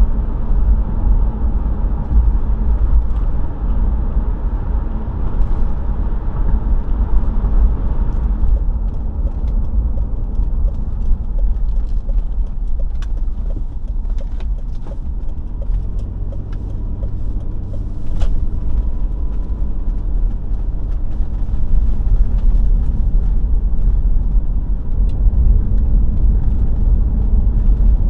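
Road noise inside a moving car: a steady low rumble of engine and tyres, with scattered light ticks through the middle.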